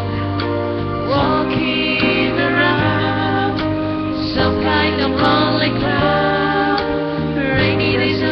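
A slow ballad: a female voice sings held notes with vibrato over a sustained instrumental accompaniment and a bass line.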